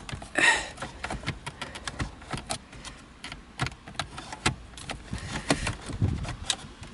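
Irregular plastic clicks, knocks and rattles of a 1999 Nissan Altima's climate control unit being wiggled and worked out of the dashboard, with a louder scrape about half a second in.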